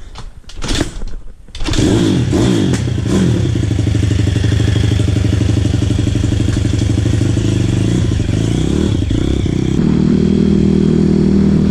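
Pit bike's 140 cc engine starting after a few clunks, then running with a brief blip of throttle and pulling away near the end. The mixture is still lean.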